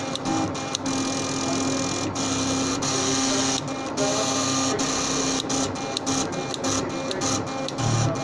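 Elliott 803's drum plotter drawing: its stepping motors buzz in a steady tone while the pen carriage and paper drum move, broken by frequent sharp clicks and brief gaps as the moves start and stop.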